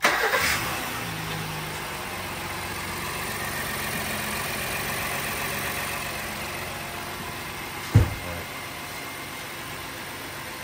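Honda Pilot 3.5-litre V6 starting up, loud at first and then settling into a steady idle, running on a newly fitted serpentine belt. A single sharp thump comes about eight seconds in.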